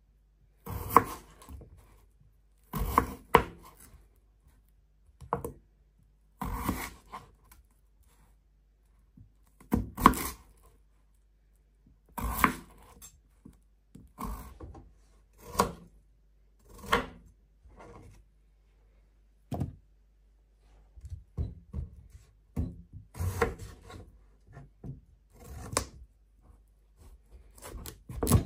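Kitchen knife cutting raw potatoes into wedges on a plastic chopping board. Each cut ends in a sharp knock of the blade on the board, in uneven strokes every second or two, some in quick pairs.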